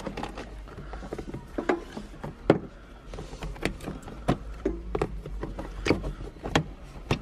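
Round plastic access cover being fitted into its opening in a van's floor: a series of irregular sharp knocks and clicks of plastic against plastic as it is pushed and worked into place, the loudest about two and a half seconds in.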